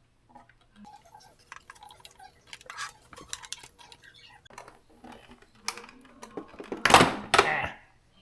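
Light plastic clicks and knocks as a refrigerator ice maker control unit is handled and its wiring connector worked loose, with a louder clatter about seven seconds in.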